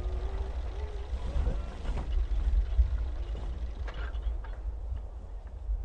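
A low, steady rumble with faint wavering tones gliding up and down above it and a few sharp clicks.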